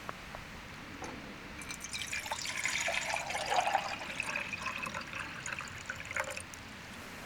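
Liquid being poured into a container, running for about four seconds from under two seconds in, then fading out.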